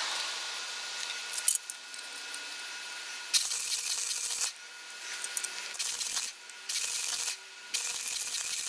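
Wire-feed (MIG) welder arc crackling and sputtering in about four short bursts, starting about three seconds in, with brief pauses between them as the welder stops and restarts the bead.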